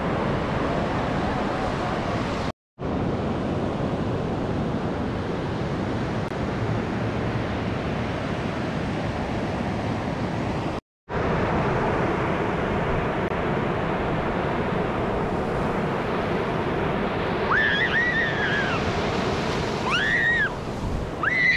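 Ocean surf breaking and washing up a sand beach, a steady rush of waves, cut to silence briefly twice.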